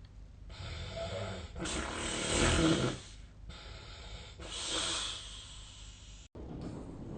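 A sleeping person snoring through several breaths, the loudest snore about two and a half seconds in.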